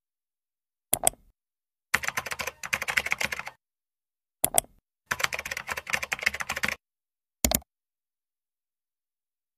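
Computer keyboard typing sound effect in two runs of rapid key clicks, each about a second and a half long. A short click comes before each run, and another follows near the end.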